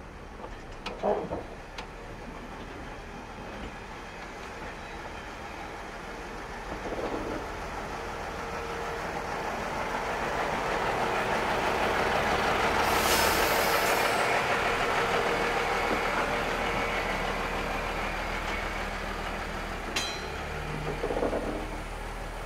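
Diesel rail vehicle passing on the depot tracks, its running growing louder to a peak about halfway through and then fading, with a brief hiss near the loudest point.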